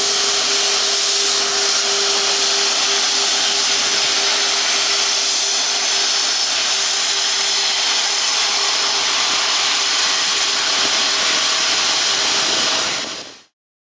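Airbus A340-600's four Rolls-Royce Trent 500 turbofans running as the airliner rolls out along the runway after touchdown: a steady, loud jet hiss and whine with a low hum that fades out near the end. The sound cuts off suddenly just before the end.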